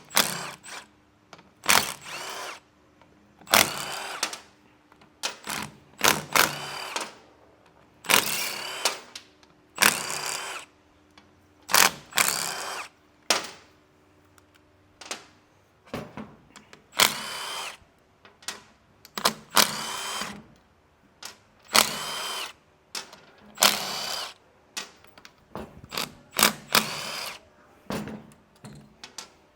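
Cordless power tool running in about twenty short bursts, each one spinning up and stopping within a second, every second or two: a 12 mm socket backing out the bolts of a differential side cover one by one.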